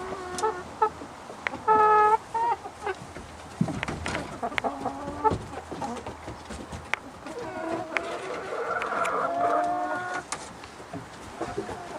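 Free-range chickens clucking and calling, with a short loud squawk about two seconds in and a longer run of calls later on.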